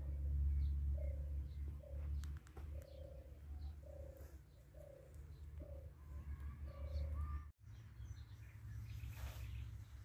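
A dove cooing: a run of about eight short, falling coos, evenly spaced, with faint chirps of small birds and a steady low rumble underneath.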